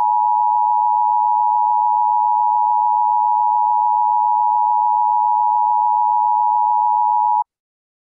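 Emergency Alert System attention signal: a steady, loud two-tone alarm that cuts off abruptly near the end. It announces that an emergency message, here an Emergency Action Notification, is about to follow.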